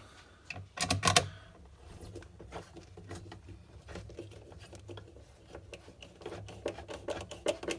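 Phillips screwdriver driving 1-inch screws into a pinball cabinet's existing holes to fasten a subwoofer grill: a louder clatter about a second in, then a run of small rapid clicks that thickens near the end.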